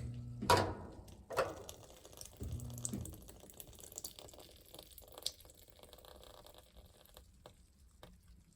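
Plastic clicks and knocks of a washing machine's lid lock switch being fitted back in place in the first few seconds. Faint water dripping and trickling follows in the stopped washer tub.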